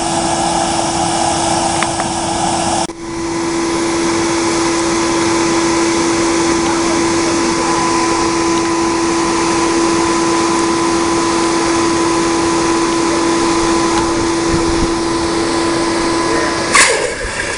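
Electric air blower running steadily, a constant whine over rushing air, as it forces air into a bloomery furnace. It drops out for an instant about three seconds in. Near the end the whine stops and there is a sharp knock.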